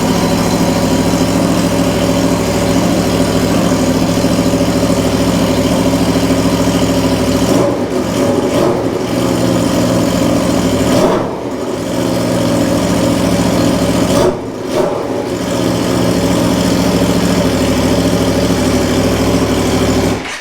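Aprilia RSV4 V4 engine running inside a house with only the header fitted and no exhaust, very loud. It runs steadily, rises and falls in pitch three times as the throttle is blipped, and cuts off suddenly at the end as it is switched off.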